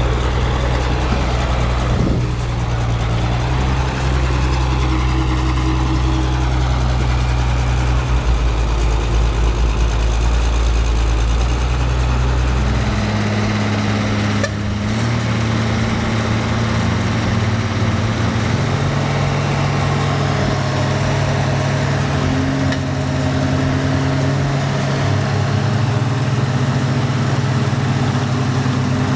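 Heavy diesel engines of a logging truck and D6 bulldozers working up a steep slope, running steadily. The engine note shifts up about halfway through and again a few seconds later.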